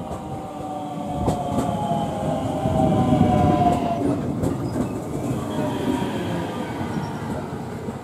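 JR West 521-series electric commuter train pulling into a station and braking. Its traction motors give a whine that falls steadily in pitch as it slows, over a wheel rumble that is loudest about three seconds in, with a few clicks of the wheels over rail joints.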